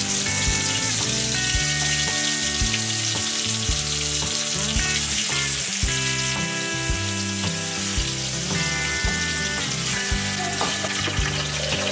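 Marinated chicken pieces sizzling in hot oil in a large metal pot, a steady frying hiss. Background music with a regular beat plays along.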